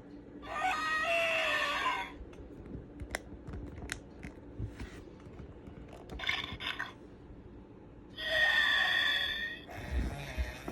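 Disney Dino Alive Baby Aladar toy dinosaur playing its recorded baby-dinosaur cries: two long pitched calls of about a second and a half each, with a shorter one between them. Light clicks sound in the gaps between calls.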